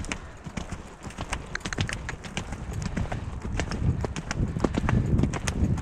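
Hoofbeats of a ridden horse, a run of quick thuds and clicks that grows louder toward the end.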